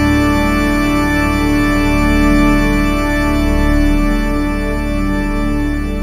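Slow ambient background music of long-held chords, steady and unchanging.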